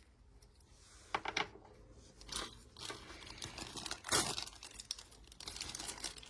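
Plastic packaging crinkling in bursts, with small clicks and taps, as tiny doll accessories are handled and unwrapped. The loudest rustles come about one second in and about four seconds in.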